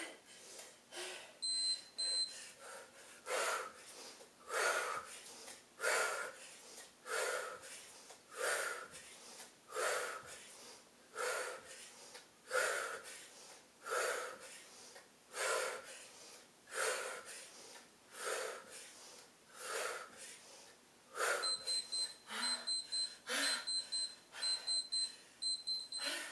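A woman breathing hard in forceful gasps about once a second during a high-intensity Tabata interval. An interval timer beeps rapidly at a high pitch briefly about two seconds in, then in quick repeated beeps through the last five seconds, counting down the end of the interval.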